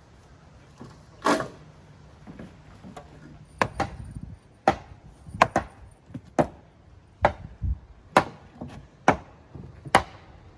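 Repeated hammer blows striking wood, a dozen or so sharp hits at roughly one a second, some in quick pairs.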